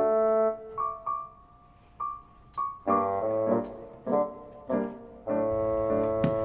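Background piano music: chords and single notes played at an easy pace, each ringing on and fading.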